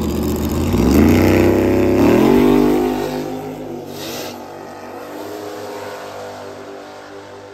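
Two small-tire drag cars launching off the line at full throttle, engine pitch climbing through two upshifts, then fading as the cars run away down the strip.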